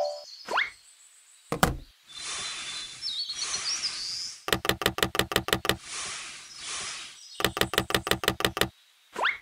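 Dubbed stop-motion sound effects over toy bricks being placed: a knock, then a hissing swell with a bird chirping through it. Two quick runs of clicks follow, about eight a second, with another hissing swell between them, and a short rising zip near the end.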